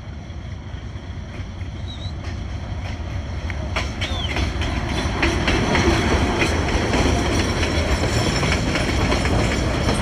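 Diesel passenger train passing close by: the locomotive's engine rumble and the wheels clattering over the rails, growing louder as it comes up and staying loud as the carriages roll past.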